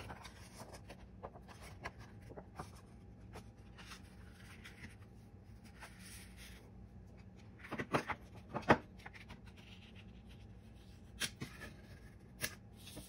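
Card stock being folded by hand along a scored line: soft paper rustling and sliding, with a few sharp taps and crackles about eight seconds in and near the end as the fold is pressed flat with a plastic tool.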